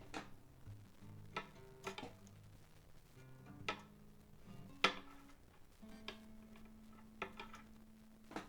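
Light clicks and taps against the strings and frets of a Seagull S6 acoustic guitar while its string height is measured. Each touch leaves a string faintly ringing, and one low note rings on for a couple of seconds near the end.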